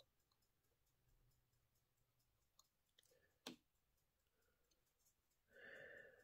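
Near silence broken by faint small clicks of a watchmaker's screwdriver on the screws of a wristwatch movement, the sharpest about three and a half seconds in. A brief vocal sound comes near the end.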